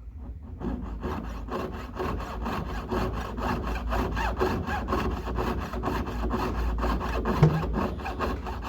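Quick, evenly repeated back-and-forth strokes of a small hand tool cutting or rasping metal, starting about half a second in. There is a brief louder knock about seven and a half seconds in.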